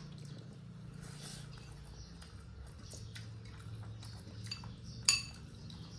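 Eating rice by hand from a ceramic plate: soft chewing and small clicks of fingers on the plate, with one sharper clink about five seconds in, over a steady low hum.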